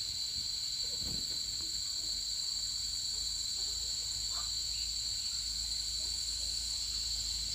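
Steady chorus of insects making a shrill, unbroken drone at two high pitches, with a few faint soft knocks underneath.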